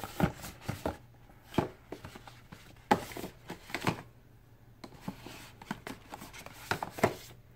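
Stiff paper shopping bag rustling and crackling as a hand reaches in and handles what is inside: about seven separate sharp crinkles and knocks with quiet gaps between.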